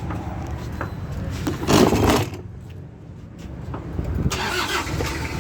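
Toyota Hilux engine running, with a brief loud surge about two seconds in and a louder stretch again from about four seconds.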